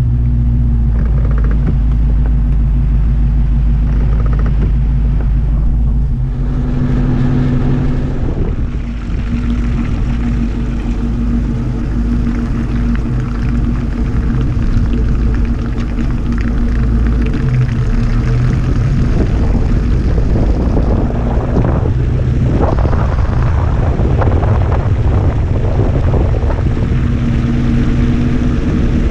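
A car engine runs with a steady low hum. In the second half a rough rushing noise builds up over it.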